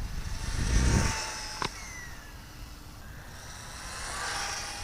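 Brushless RC buggy running: its motor's high whine rises in pitch as it speeds up, there is a sharp click about a second and a half in, and then the pitch falls away. The whine builds again near the end.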